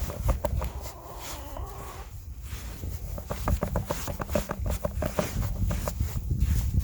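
Crunching steps and handling noises in deep snow, a dense run of quick irregular crunches, over a steady low rumble of wind on the microphone.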